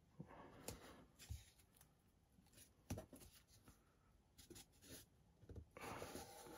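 Very faint rubbing and a few soft taps as a strip of masking tape is pressed and smoothed down onto a fibreboard panel by hand.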